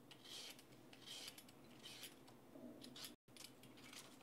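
Faint, short scraping strokes of a blade shaving the yellow zest off a lemon, about one stroke a second. The sound drops out abruptly for a moment about three seconds in.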